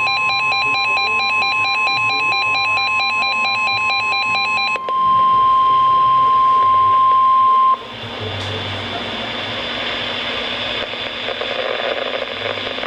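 NOAA Weather Radio's steady one-pitch warning alarm tone announcing a warning broadcast, with a fast, repeating electronic beeping pattern over it for the first five seconds or so. The tone cuts off suddenly about eight seconds in, leaving a radio hiss before the announcement.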